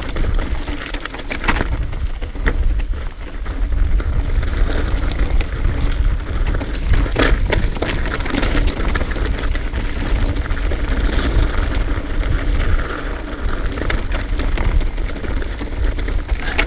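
Trek Remedy full-suspension mountain bike rolling down a rough trail: tyres crunching over loose ground, with scattered sharp clicks and rattles from the bike. A steady low wind rumble sits on the microphone underneath.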